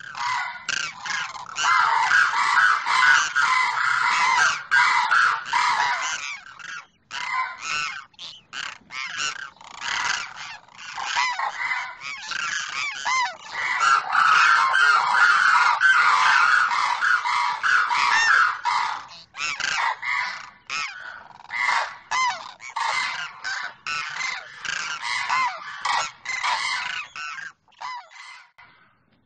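Demoiselle cranes calling, a male calling to a female, in rapid strings of short, harsh notes that overlap. The calls come thickest in two long spells and thin out near the end.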